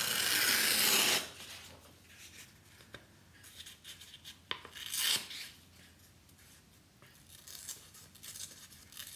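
A sheet of paper torn by hand: a long rip through about the first second, then a few short tears and paper rustles.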